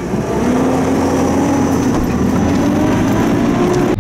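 A vehicle driving on a rough dirt track, heard from inside the cab: engine and tyre rumble, with the engine note climbing steadily as it speeds up.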